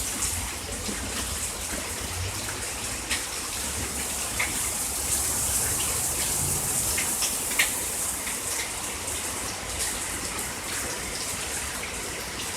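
Steady hiss of rain falling as a hailstorm winds down, with a few sharp ticks and a low rumble underneath.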